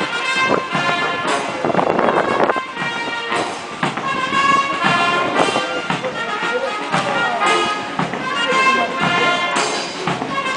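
Military brass band playing a march for a troop parade: sustained brass notes over a steady drum beat.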